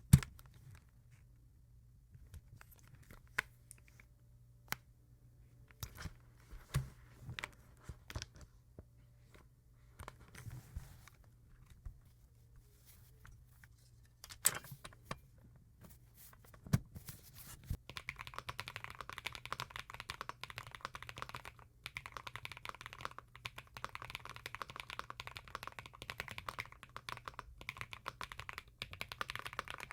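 Akko Mineral 02 full-size mechanical keyboard. For the first eighteen seconds or so there are scattered separate clicks and knocks, with some soft rustling. After that comes fast, continuous typing, with the keystrokes clattering in a dense run.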